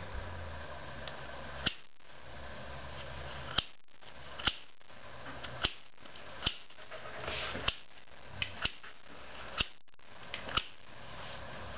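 Plastic rainbow puzzle ball being twisted by hand, its rotating sections clicking into place: about ten sharp clicks at irregular spacing, roughly one a second, over a faint steady hiss.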